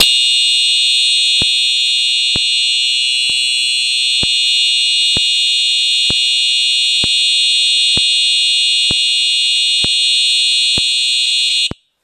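Simplex 4903-9426 TrueAlert fire alarm horn/strobe sounding a loud, continuous, high-pitched electronic horn tone, with a faint tick about once a second from the strobe firing. The horn cuts off abruptly near the end.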